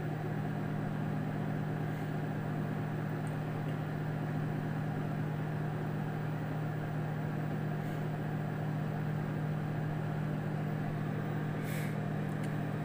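Samsung microwave oven running: a steady low hum from the magnetron and fan as it heats.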